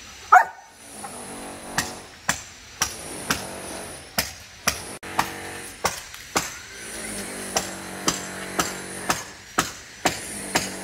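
Hammer blows on the roof under renovation, about two a second in uneven runs with short pauses. About half a second in, a brief high squeal is the loudest sound.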